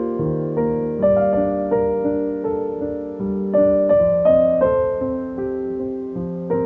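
Background piano music: slow, gentle notes and chords struck about once or twice a second, each fading before the next.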